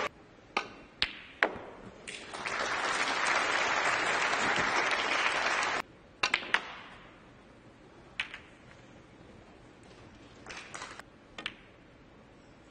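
A few sharp clicks of snooker balls, then audience applause for several seconds that cuts off abruptly. After it come sharp clicks of cue and balls as a break-off is played into the pack of reds, with a few more isolated ball strikes.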